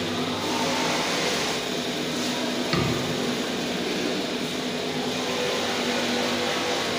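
Steady roar of a gas burner heating a pot of boiling water, with a single low knock about three seconds in as the hot brass denture flask is lifted out of the pot.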